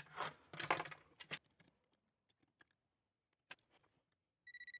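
Quiet clicks and taps of a circuit board and hand tools being handled, mostly in the first second and a half, with one more click later. A short electronic beep sounds near the end.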